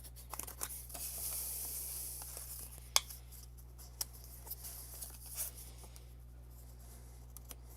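Cut cardstock box being opened out and folded by hand: paper rustling and sliding, with a few sharp creasing clicks.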